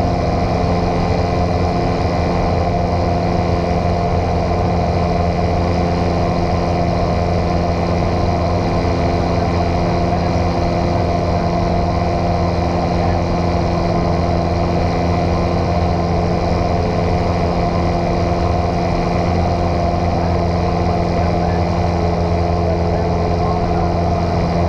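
A light airplane's piston engine and propeller droning steadily at constant power, with no change in pitch or level.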